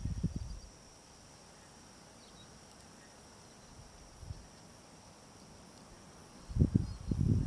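Steady, faint, high-pitched chirring of insects in the bush. Irregular low rumbling bursts come in the first second and again near the end.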